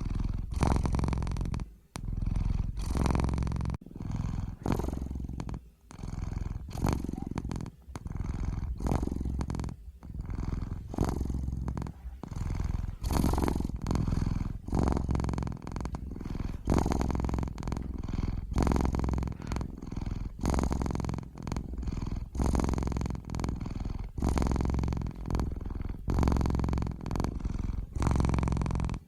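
Domestic cat purring, a low rumble that swells and breaks with each breath, in even pulses about once a second.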